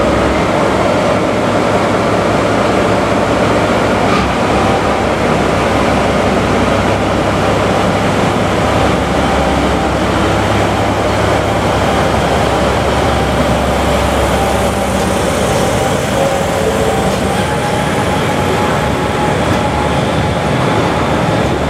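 DE10 diesel-hydraulic locomotive's V12 diesel engine running loud and steady under power as it pulls away and draws past. Near the end the coach it hauls rolls by on the rails.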